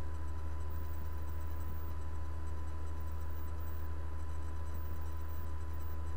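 Steady low electrical hum with a faint, unchanging high tone above it; nothing else happens.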